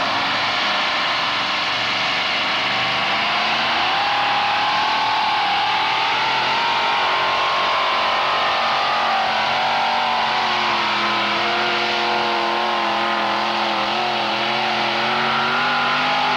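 Modified pulling tractor's engines running hard as the tractor drags the weight sled down the track: a loud, steady engine note whose pitch climbs a little about four seconds in, with a second, lower set of tones joining about ten seconds in.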